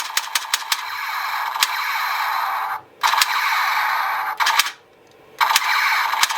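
Toy police pistol's electronic sound effects from its small speaker: a rapid run of clicking shots, about five a second, then a steady buzzing noise that cuts out twice briefly, and the rapid clicking shots again near the end.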